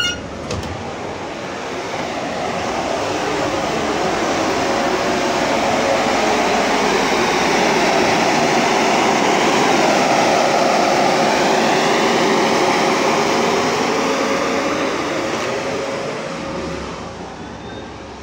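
Electric engine-cooling fan of a hybrid double-decker bus whirring at one steady pitch that does not follow the engine revs. It grows louder toward the middle and fades near the end.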